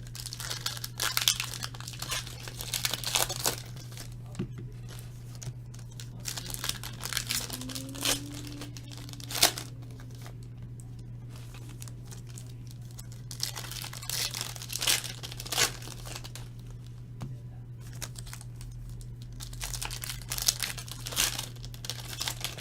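Plastic wrapping crinkling and tearing in bunches of crackle as trading card packs are opened and handled, with one sharp snap about nine and a half seconds in, over a steady low hum.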